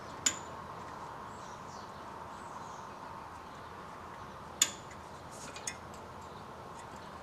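Three short, sharp clicks over a faint steady hum: one right at the start, one about four and a half seconds in, and a weaker one about a second after that.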